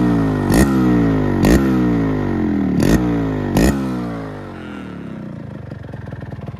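Yamaha RX135 two-stroke single-cylinder engine blipped on the throttle several times, the revs sliding down after each blip, with four sharp pops among the blips. About four seconds in it drops back to a steady idle.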